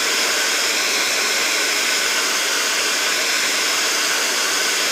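Handheld hair dryer running at a steady, loud rush of air while blow-drying hair over a round brush. It cuts off suddenly at the very end.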